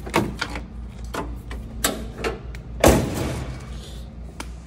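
Ford Capri door being shut: a few light clicks and knocks, then one loud thud about three seconds in.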